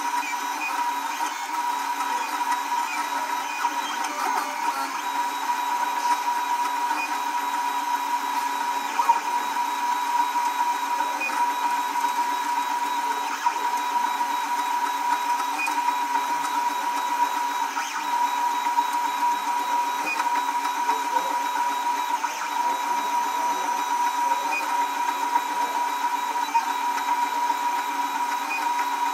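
Old MakerBot 3D printer running a print: its stepper motors whir steadily with a constant whine.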